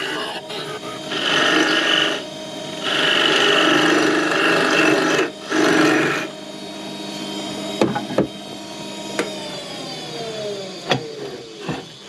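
Wood lathe running while a hand tool scrapes against the spinning workpiece in a few rasping bursts. Near the end the lathe is switched off, and its motor tone falls as it spins down, with a few light clicks.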